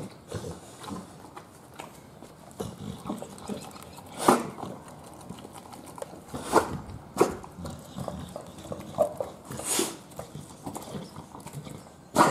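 American Bully dog eating raw satin balls (ground beef mixed with oats and cereal) off a rubber crate mat: irregular wet chewing and smacking, broken by a handful of sharp clicks or knocks.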